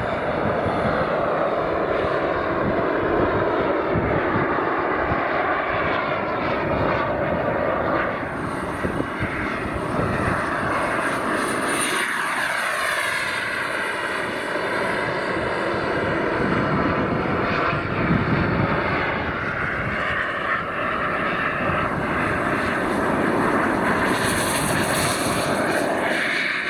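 Radio-controlled model jets' turbine engines running at take-off power as the models climb out, one clip after another. About halfway through, a falling whine as one flies past.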